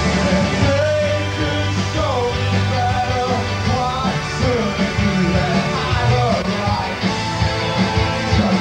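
Live rock band playing: electric guitar, bass and drums, with a voice singing over the top in a wavering melody.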